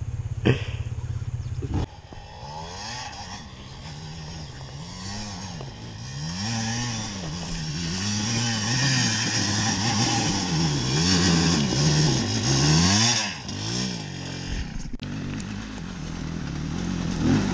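Enduro motorcycle engine climbing a steep rocky trail, its revs rising and falling about once a second as the throttle is worked, and growing louder as the bike approaches. A steady low hum fills the first two seconds.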